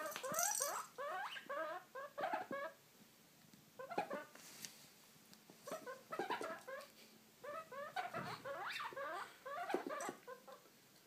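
Guinea pig squeaking in quick runs of short, high squeaks, in several bouts with brief pauses between.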